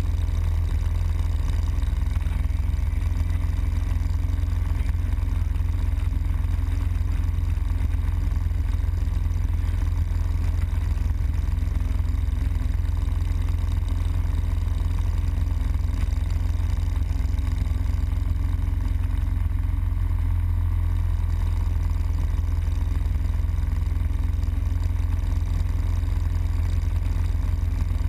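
Harley-Davidson Road Glide Custom's V-twin engine running steadily at highway cruising speed, mixed with heavy wind noise on the microphone.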